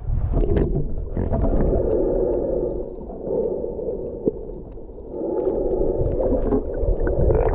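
Muffled underwater rumble and sloshing of sea water around a submerged camera, swelling twice with a dip in the middle and a few small clicks.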